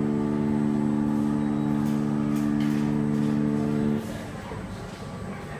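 Coin-operated kiddie ride's speaker holding one long electronic note at the end of its nursery-rhyme tune, cutting off abruptly about four seconds in.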